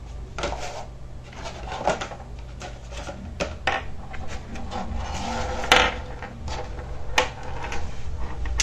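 Unboxing handling noise: packaging and a pair of wireless neckband earphones being picked up and moved around, with scattered clicks and knocks, the sharpest about five and a half seconds in, and rustling between them.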